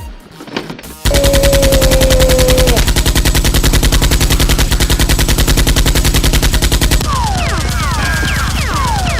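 Rapid automatic machine-gun fire sound effect that starts abruptly about a second in and rattles on without a break. Near the end come several short, falling high-pitched whines over the shots.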